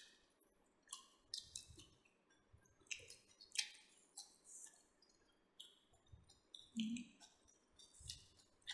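Close-miked wet mouth sounds of people chewing roasted pork: soft smacks and clicks of lips and tongue at irregular intervals, about two a second, all faint.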